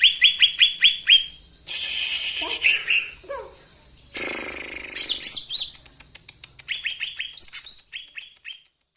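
A songbird singing a varied song: quick runs of downward-sweeping chirps, about six a second. These are broken about two seconds in and again about four seconds in by harsh, rasping phrases, then come faster ticking notes and more runs of chirps.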